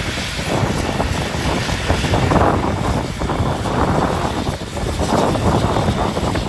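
Jet airliner engines running loudly at close range, a rumbling noise that surges and fades in gusts, with jet blast buffeting the microphone.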